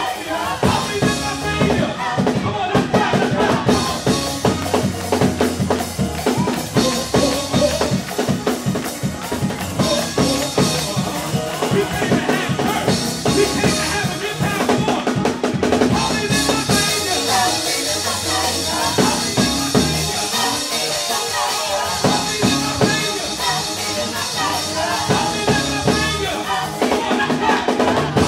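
Live gospel band and choir performing: a drum kit keeps a steady beat under keyboard and singing voices.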